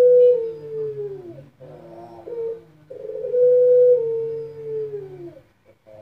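Albino puter pelung dove (a Barbary dove) cooing in long drawn-out coos. Each coo holds one pitch, then slides down at the end. The first coo falls away about a second in, a short note follows about two seconds in, and a second long coo starts about three seconds in and falls away near the end.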